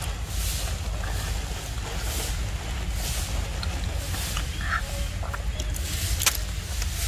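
Close rustling and brushing against the microphone as a long-tailed macaque moves right over the camera, over a steady low rumble, with a sharp click about six seconds in.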